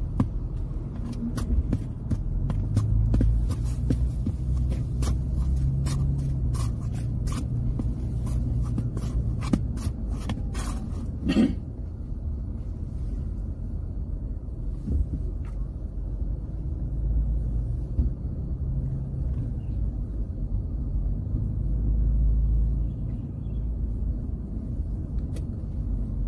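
Uneven low rumble of wind on the microphone. A dense run of clicks and crackles over roughly the first eleven seconds ends in a brief swell.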